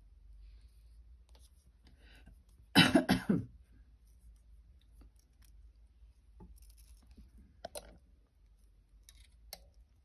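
A person coughs, a few quick coughs close together about three seconds in, the loudest sound. Around it, faint small clicks of wire and beads being handled.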